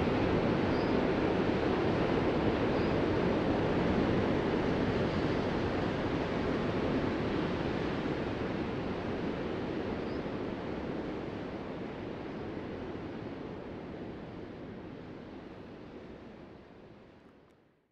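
Ocean surf: a steady wash of waves breaking, fading slowly away through the second half until it dies out at the end.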